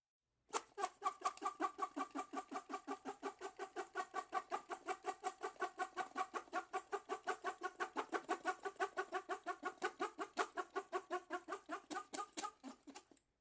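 A drinking straw squeaking, worked up and down in a quick, even rhythm of about five squeaks a second. It starts about half a second in and stops near the end.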